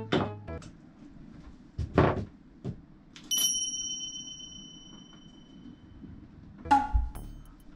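Knocks and thumps of someone climbing onto a wooden kotatsu table, the loudest about two seconds in. Then a clear bell-like ding rings out and fades over about two seconds, and another sharp sound comes near the end.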